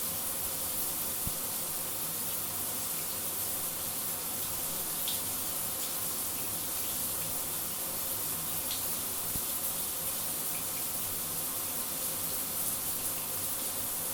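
Shower running: a steady hiss of spraying water, with a couple of faint ticks in the middle.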